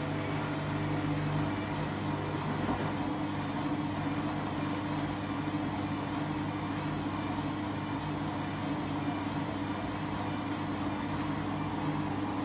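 Candy washing machine spinning a half load of bedding: the motor and drum run with a steady hum. The load is slightly out of balance.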